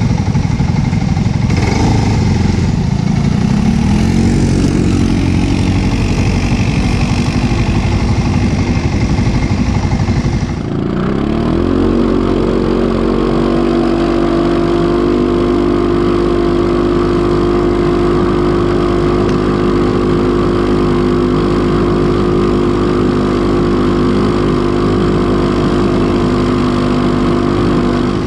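ATV engines running hard on a dirt climb. The engine revs up about two seconds in. After a break about ten seconds in, an engine revs up again and then holds a steady high pitch.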